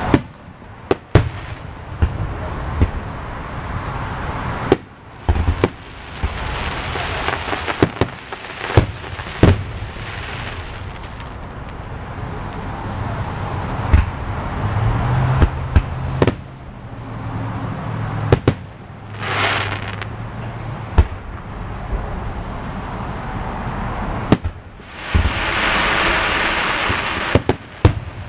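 Aerial fireworks display heard from a few hundred yards away: shell bursts and salutes going off as sharp pops at irregular intervals, sometimes several close together, over a steady rushing noise between them.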